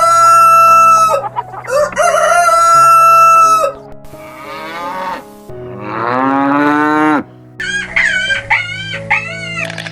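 Rooster crowing twice, each a long held call, then a further call and a run of short clucking calls near the end. Soft background music sits underneath.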